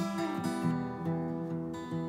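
Acoustic guitar strummed in a steady rhythm, its chords ringing out, in an instrumental passage of a folk song.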